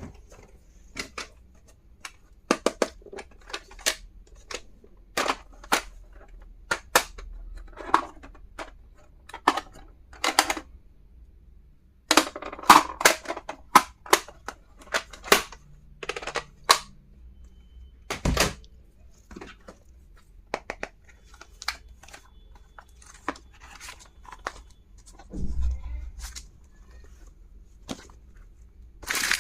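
Small plastic stationery items being handled and set down: irregular sharp clicks, taps and snaps, with a dull thump about eighteen seconds in and another near twenty-five seconds.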